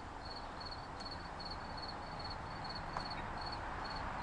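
An insect chirping steadily, about two to three short high chirps a second, over a continuous outdoor hiss. There is a faint click about three seconds in.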